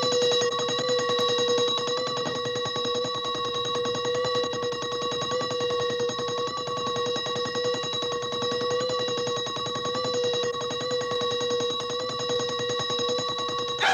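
Mechanical alarm clock bell ringing without a break: a rapid, unbroken ring on one steady pitch.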